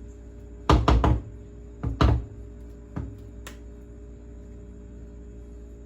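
A stand mixer's paddle knocked against the mixing bowl to shake off cake batter: three sharp knocks in the first two seconds, then two fainter ones, over soft background music.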